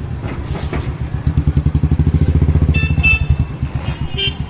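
Motorcycle engine running with a rapid low pulsing exhaust beat that grows louder about a second in as the bike pulls away, with a couple of short high beeps near the end.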